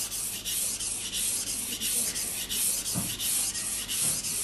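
Kitchen knife blade being stroked back and forth on a wet whetstone, with a guide rail clipped to the blade: an even, gritty rasp at about three to four strokes a second. The sound stays the same stroke to stroke, the sign of a steady sharpening angle.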